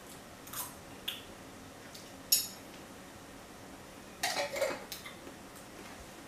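A metal fork clinking and scraping against a small plate. There are a few light clicks, then one sharp ringing clink about two seconds in, and a short burst of clattering a little after four seconds.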